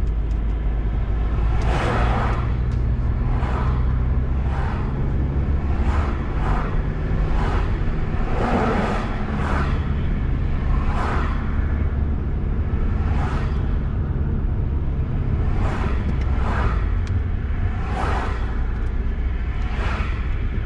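Road traffic: a steady low engine rumble, with vehicles whooshing past one after another, roughly every second or two.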